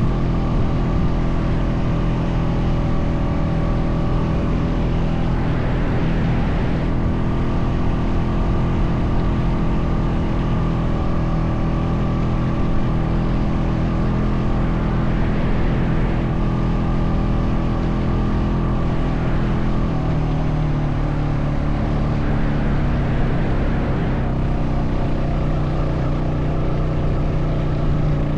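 Honda Foreman 520 ATV engine running steadily under way. Its note shifts a little about twenty seconds in.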